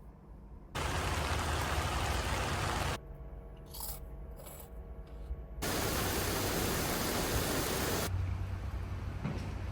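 Heavy rain, an even rushing hiss that cuts in abruptly about a second in. It drops away around three seconds for a quieter stretch with faint steady tones, then returns in full near six seconds.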